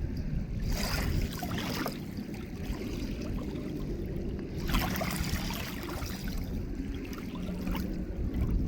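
Lake water lapping and trickling over a low rumble of wind on the microphone, with two louder rushing spells, about a second in and near the middle.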